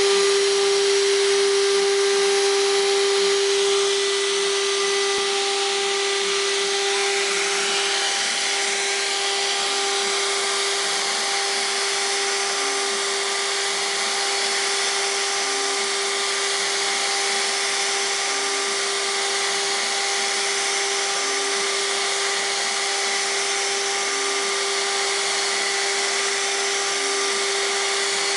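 CNC router spindle running at a steady high-pitched whine while its bit cuts a plaster-silica mold, over a continuous hiss of cutting and dust. The sound drops slightly about four seconds in, then holds steady.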